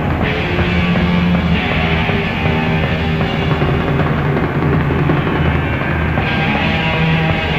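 Rock music with guitar and drums, playing steadily.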